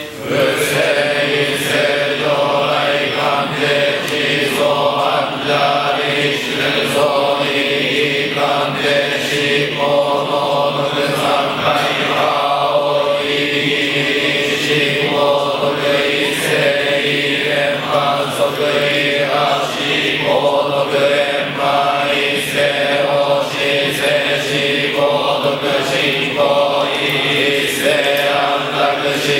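Shingon Buddhist priests chanting the goma fire-ritual liturgy together: a steady drone on one held pitch, with the syllables of the chant shifting over it.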